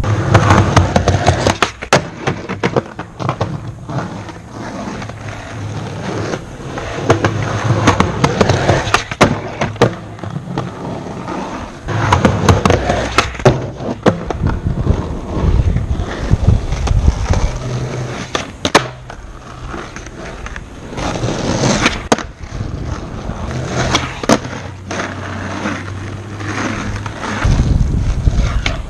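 Skateboard wheels rolling over pavement, the rolling noise swelling and fading, with sharp clacks of the board hitting the ground every few seconds.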